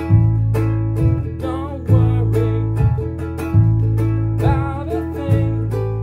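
Concert ukulele strummed in a steady rhythm over foot-played bass, which holds a long low note that changes about every second and a half.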